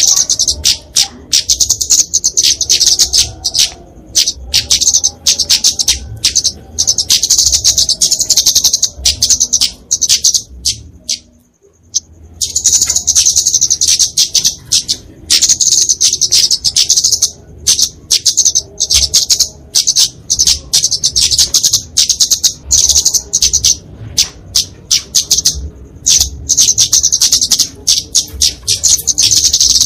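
Flowerpecker (kemade) giving its excited fighting call: dense runs of very short, high, sharp chips, with a brief break a little before halfway.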